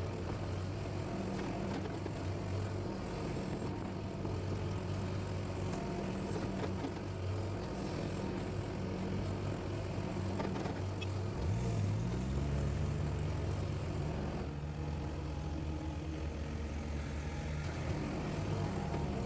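Excavator's diesel engine running steadily. About twelve seconds in, its note glides briefly and then settles on a different steady pitch.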